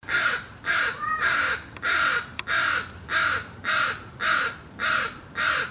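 Crow cawing over and over, harsh calls at an even rhythm of about two a second.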